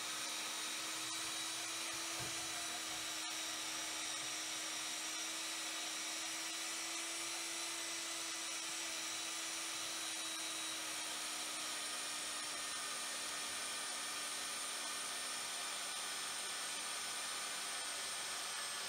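Vevor R2103 1100 W portable metal-cutting bandsaw running with a steady whine as its blade cuts slowly through a 50 mm round bar of hard turning steel, fed only by the saw's own weight. The motor is not labouring.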